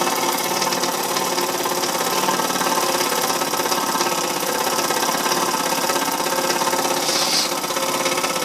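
A 1960s MLI school steam plant's small steam engine running at a steady, fast, even beat while working hard to drive a stiff, freshly built wooden model helicopter; a short hiss about seven seconds in.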